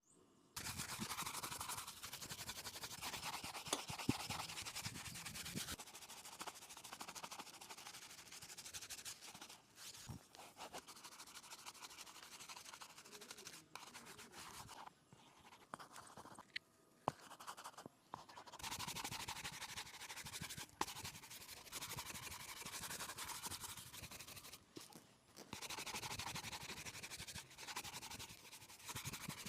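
A shoe being brushed during polishing: a brush scrubs over the shoe in long stretches of quick strokes, broken by short pauses and a few sharp ticks.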